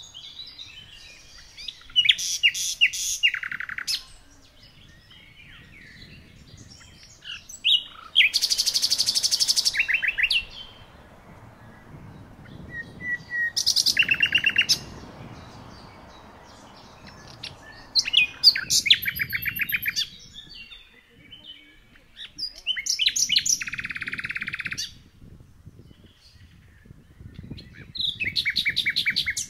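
A songbird singing, with six short phrases of rapid, high-pitched trilled notes, one about every five seconds. A faint low background hum lies underneath.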